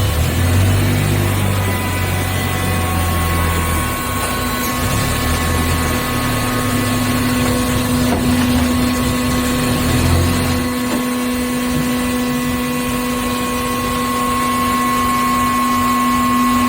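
Hydraulic baler's pump motor running with a steady hum, with a deeper throbbing that comes and goes during the first ten seconds or so.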